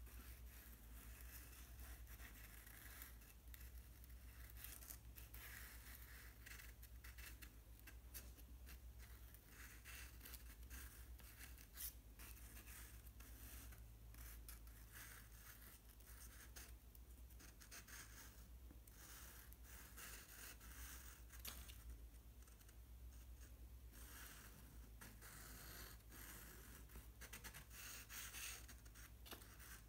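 Faint scratching of a drawing pen on sketchbook paper, in short, irregular strokes.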